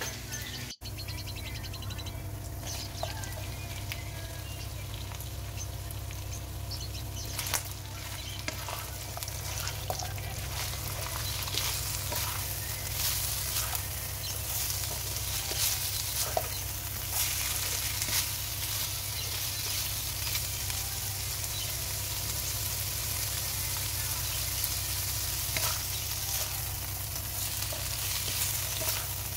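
Chicken and chopped vegetables sizzling in a hot wok while a spatula stirs and scrapes them around, with scattered scrapes against the pan. The sizzle grows a little louder about a third of the way through.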